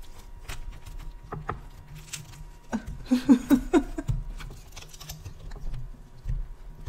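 Pizza cutter wheel scraping and crunching through a thick deep-dish pizza crust against a wooden board, in short, repeated clicking strokes. About three seconds in come a few short, strained voice sounds from the effort of pushing the cutter through.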